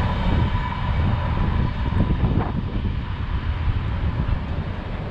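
Low rumble of a loaded coal train receding down the line after passing, mixed with wind buffeting the microphone. A faint steady ringing tone dies away in the first second or two.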